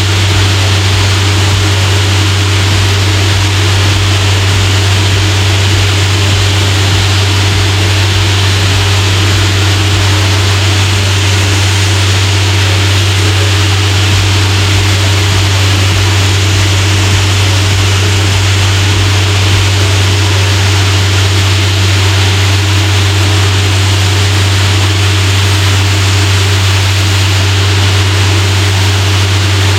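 Diesel air compressor running at a steady, unchanging low drone, with the loud even hiss of compressed air from a blower lance over it.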